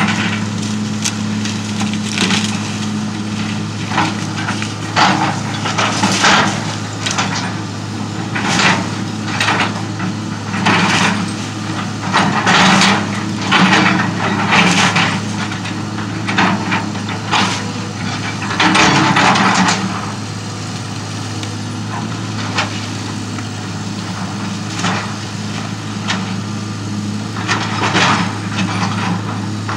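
Hitachi EX200 hydraulic excavator's diesel engine running steadily while its bucket tears into and crushes the wooden frame of a house. The wood cracks, splinters and crunches again and again, with a longer crash of collapsing timber about two-thirds of the way through.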